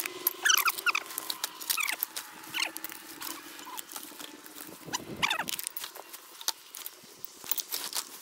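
Black plastic rubbish bag rustling and crinkling as litter is gathered into it and the bag is handled, with many sharp crackles. Short high squeaks come in the first few seconds, and there is a low thud about five seconds in.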